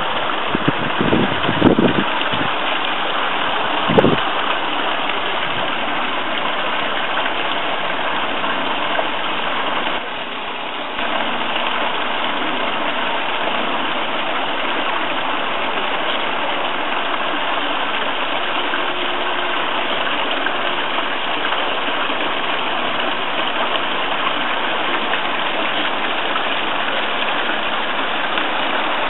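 Steady rushing of water from a garden pond's waterfall. A few brief low thumps come in the first four seconds, and the sound drops slightly for about a second around ten seconds in.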